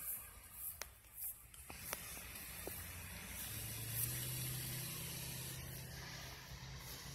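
Fire truck engine running as the truck moves past: a low steady drone that starts about halfway through, under a steady hiss. A few light clicks come in the first two seconds.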